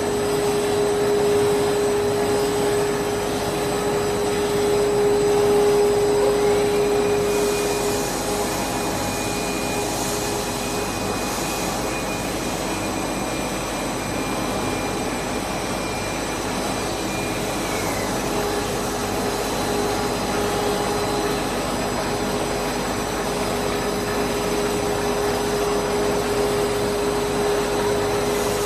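A 2000 mm five-layer cast stretch film machine running: a steady whir and hum of motors and blowers. A high whine rises in pitch about six seconds in, holds, and falls away about eighteen seconds in.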